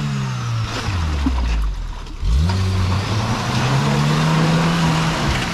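Suzuki Samurai's engine labouring through deep mud and water: the revs sink steadily for about two seconds, almost to a stall, then pick up sharply about two seconds in and climb back up.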